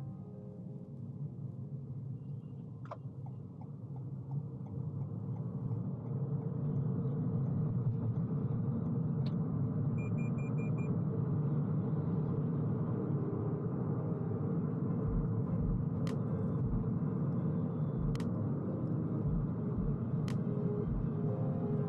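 Steady road and tyre rumble inside the cabin of a Toyota Corolla Hybrid on the move, growing louder about six seconds in. A few sharp clicks, a short high beep about ten seconds in, and some low thumps from the road in the second half.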